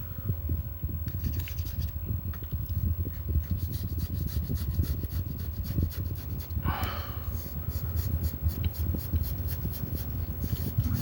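Razor blade scraping glue residue off an LCD screen wetted with isopropyl alcohol, in rapid short scratchy strokes.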